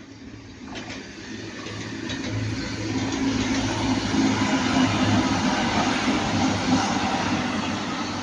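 A TransPennine Express Class 185 diesel multiple unit passing by. Its engine hum and wheel noise build over the first few seconds, peak around the middle, then begin to fade as it moves away.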